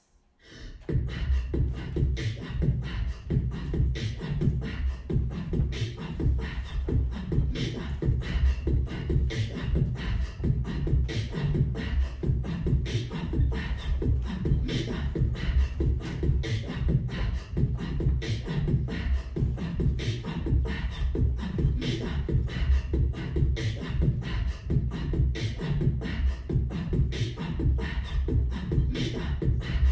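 Rhythmic music driven by a fast, steady percussive beat with heavy low end, starting about half a second in.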